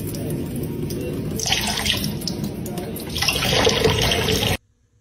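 Kitchen tap running, a thin stream of water splashing into a metal bowl in the sink. The sound cuts off suddenly near the end.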